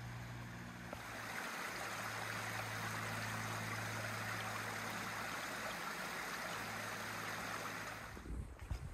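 Small woodland brook running over rocks: a steady rush of water that grows louder about a second in and cuts off near the end. A low steady hum runs underneath.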